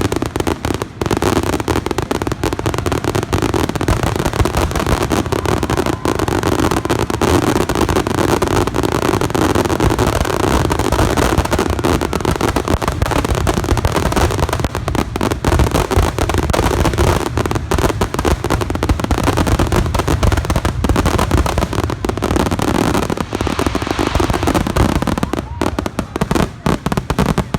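A fireworks grand finale: aerial shells bursting in a rapid, unbroken barrage, the bangs and crackles overlapping with no gaps.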